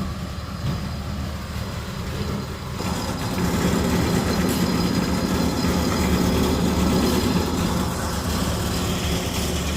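Engine of construction machinery running steadily, becoming louder and noisier about three seconds in and staying that way.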